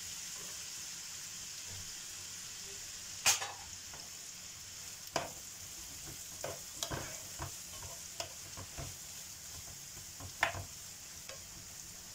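Freshly added chopped onions sizzling steadily in hot oil and butter in a stone-coated frying pan, stirred with a plastic spatula. The spatula knocks against the pan a dozen times, sharpest about three seconds in and again about ten seconds in.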